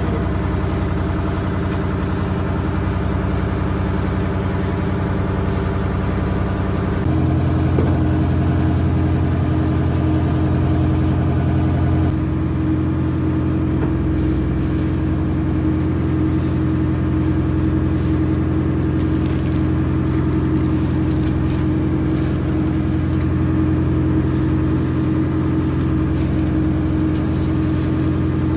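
Engine running steadily with a low, even hum; its note shifts abruptly about seven seconds in and changes again about twelve seconds in.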